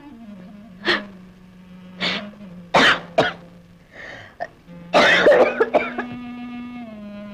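A woman coughing in a series of short coughs, ending in a longer fit of coughing about two-thirds of the way in: the cough of a consumptive, a character ill with tuberculosis. Soft held string music plays beneath.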